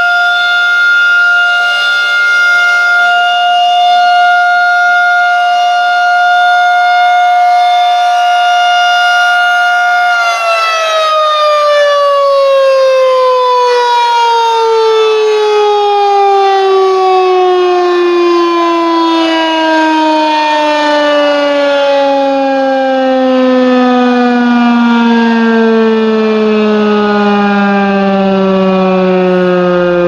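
Federal Signal 2001-130 rotating electromechanical outdoor warning siren sounding its steady alert tone. About ten seconds in it cuts power and winds down in a long wail whose pitch falls slowly and steadily.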